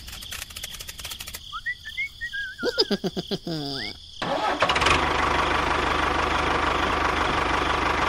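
Quick clicking and short whistling, sliding cartoon-like chirps, then about halfway through a tractor engine starts up and runs steadily with an even low throb.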